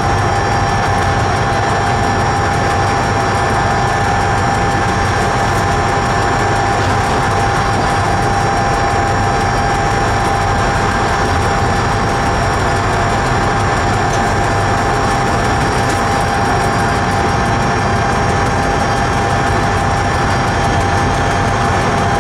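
Train running through a long railway tunnel, heard from on board: a steady, loud running noise with a constant high whine over a low rumble.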